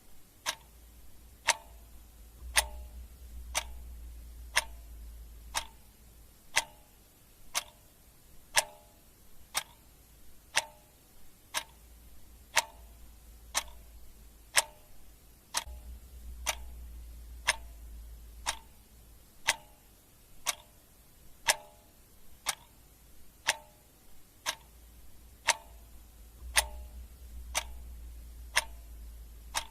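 Clock ticking steadily, about one tick a second, with alternate ticks sounding slightly different in a tick-tock pattern.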